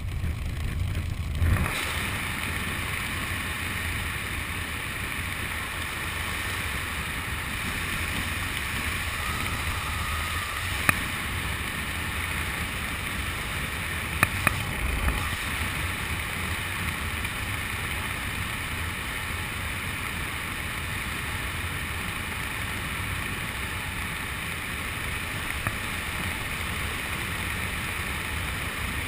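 Steady rush of airflow buffeting the microphone during parachute canopy flight, with a few sharp clicks partway through.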